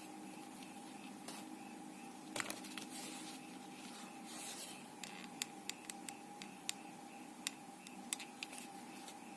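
Faint handling noises of hot-glue work on lace: a short rustle about two and a half seconds in and another near the middle, then a string of sharp little clicks and taps, over a steady faint hum.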